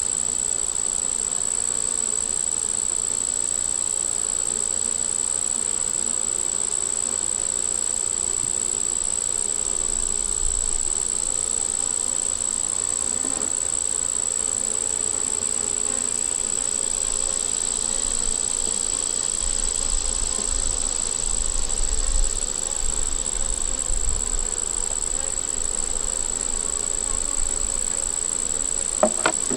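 Honeybees buzzing steadily around an open hive while its frames are inspected, with a thin, steady high-pitched whine running throughout and some low rumbling about two-thirds of the way through.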